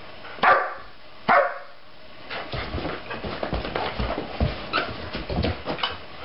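A dog barks twice, about a second apart. Then a German Shepherd puppy and a golden retriever play-wrestle on carpet, with a quick run of scuffles and short play noises.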